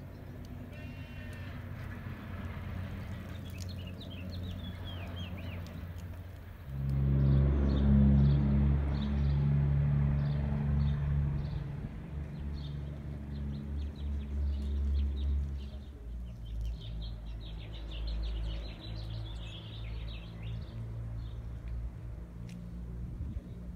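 Small birds chirping throughout, with a motor vehicle's engine running as a low, steady hum that comes in suddenly about a third of the way in and turns fainter after about two-thirds.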